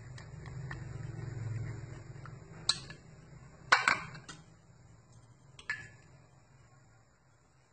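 Wooden chopsticks stirring liquid jelly mixture in a ceramic bowl, then a sharp clatter a little under four seconds in as they are set down on a plastic container, followed by a couple of lighter knocks. A low hum swells and fades over the first couple of seconds.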